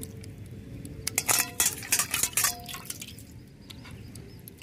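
Raw hilsa fish steaks being washed by hand in a steel bowl of water: water sloshes and drips as the pieces are lifted out, with a few sharp clinks and knocks against the bowl and the clay plate between about one and two and a half seconds in.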